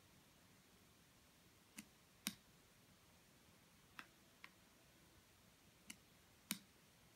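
Three pairs of sharp clicks over near silence, the two clicks of each pair about half a second apart, the second of the first and last pairs the loudest.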